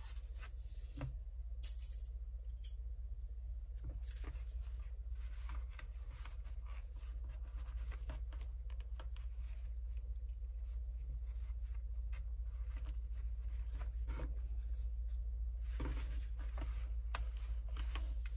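Woven fabric being handled and folded by hand, with soft rustles, small scrapes and light ticks scattered throughout, over a steady low hum.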